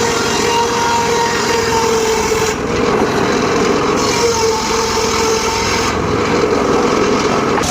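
Homemade bench-mounted circular saw running steadily while sawing teak wood, with a continuous humming whine that wavers slightly in pitch.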